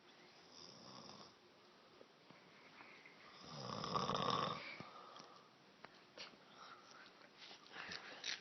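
A woman passed out asleep, snoring: a faint breath about a second in, then one loud snore about halfway through. A few small clicks follow near the end.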